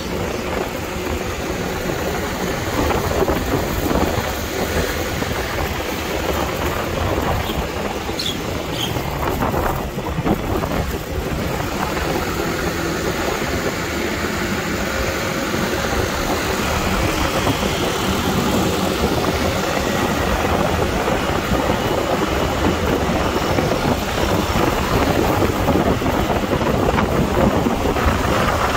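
Steady city street traffic noise: vehicles running and passing.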